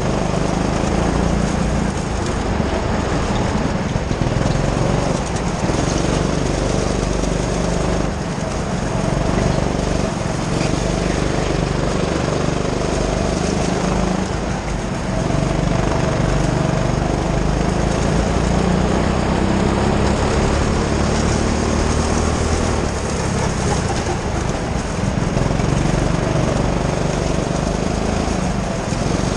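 Rental go-kart engine running hard as the kart laps, heard close from a helmet-mounted camera, its note rising and falling a little with the throttle through the corners.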